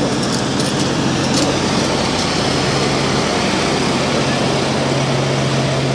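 Steady outdoor background noise, a constant rumble and hiss with a low hum, like street traffic.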